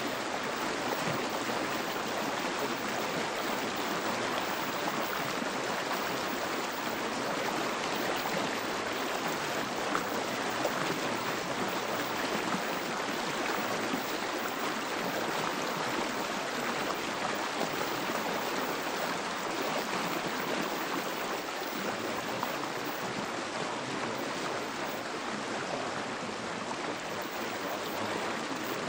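Steady, even rushing noise like running water, with no breaks or changes: the masking sound bed of a subliminal audio, under which the affirmations are embedded.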